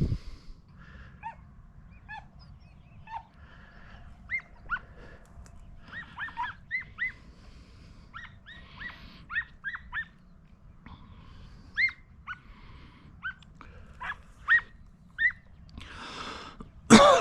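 Hunting dogs yipping and barking on a rabbit chase: short, high, scattered calls, at times several a second. It ends with a loud sound near the end that falls steeply in pitch.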